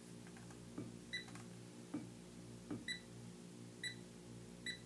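Handheld TLD.500 hydrogen leak detector giving four short, high beeps at irregular intervals of about a second. The sparse beeping is its response to a very, very small hydrogen leak of 1.4 grams per year.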